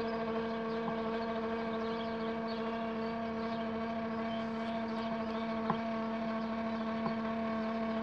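Astro-Physics Mach2GTO mount's motors slewing at go-to speed: a steady whine with several even overtones and a few faint clicks.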